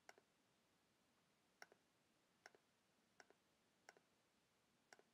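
Faint clicks of a computer mouse, each a quick press and release, six times at uneven spacing about a second apart.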